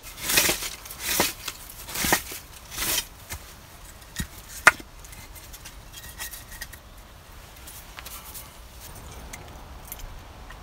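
Split birch firewood handled and scraped together: four scratchy wooden strokes, then one sharp wooden click about halfway through, followed by faint light clicks of kindling sticks being stacked.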